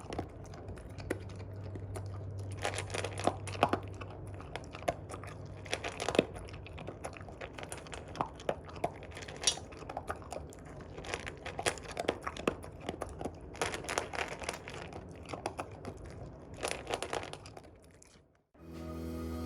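A Jindo–Shiba mix dog crunching and chewing dry kibble, an irregular run of sharp crunches. Music starts just before the end.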